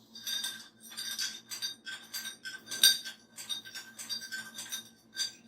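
A spoon stirring iced coffee in a drinking glass with ice, clinking repeatedly against the glass and ice cubes about three times a second, with one sharper clink midway.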